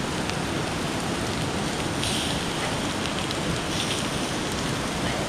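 Steady, even rushing of water, with a few faint ticks and brief brighter sounds around the middle.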